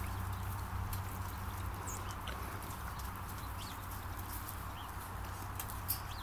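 German Shorthaired Pointer puppy wrestling and tugging at a large plush teddy bear on bare ground: scuffling with scattered light clicks over a steady low hum, and a few faint short high chirps. One sharper tap near the end.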